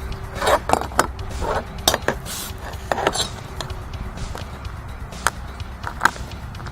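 Push pins being pressed into drilled holes in Rapid Wall vinyl skirting: a series of sharp clicks and knocks, most of them in the first half and two more near the end.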